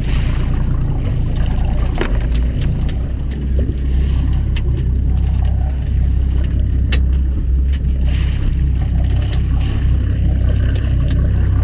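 Fishing boat's engine running with a steady low drone, with scattered sharp clicks and knocks.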